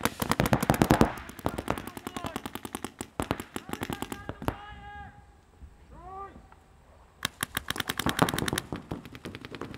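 Paintball markers firing: a fast string of shots in the first second, scattered single shots over the next few seconds, then another fast string about seven seconds in.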